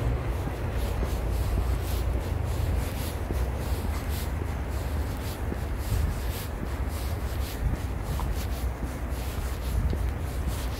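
Rubbing and scuffing noise of a microphone brushing against clothing or a hand while walking, over a steady low rumble.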